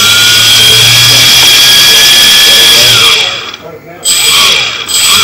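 Brushless DC motor driven by an ESC and run from the homemade transmitter's throttle stick. Its whine holds high for about two seconds, winds down and cuts out around three seconds in, then comes back from about four seconds as short rising-and-falling revs, showing the receiver is following the stick.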